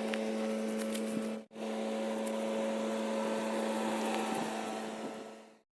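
Stihl chainsaw running steadily at high revs, with a brief dropout about a second and a half in; it fades out near the end.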